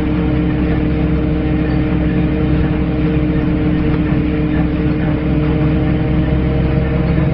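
Dennis Lance single-deck bus running, a steady drone with several held tones over a low rumble: the groaning noise this bus is known for.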